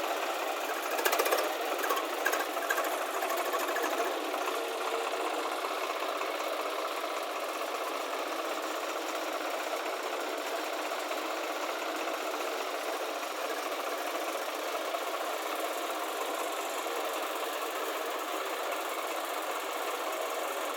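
Heavy diesel machinery running steadily while loading soil, with a few sharp metallic clanks in the first few seconds.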